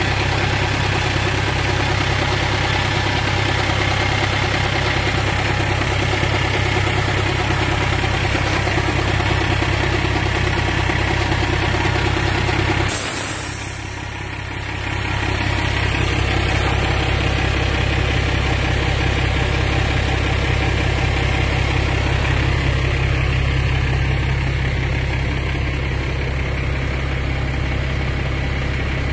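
Isuzu 6HE1 six-cylinder diesel engine of a 1998 Isuzu Forward truck idling steadily. About halfway through there is a short hiss and the engine sound briefly drops away, then returns.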